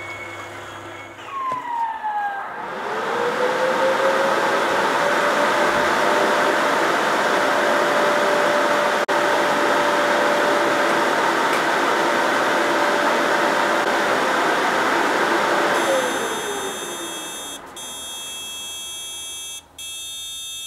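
Audiodesk Vinyl Cleaner Pro record-cleaning machine: its cleaning hum stops about a second in with falling whines. Its drying fan then spins up with a rising whine and runs steadily with a rushing noise, sped up to double speed, before winding down about 16 seconds in. Near the end the machine sounds two long electronic chimes, its signal that the record is clean and dry.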